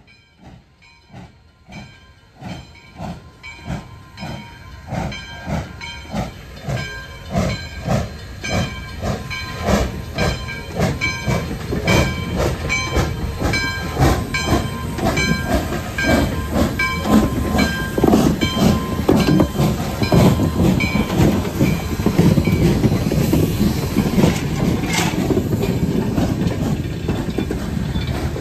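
1907 Baldwin 0-6-0 steam locomotive No. 58 working hard as it pulls a passenger train away, its exhaust chuffing in an even beat of about two a second. The chuffs grow steadily louder as the engine approaches and passes close by near the end.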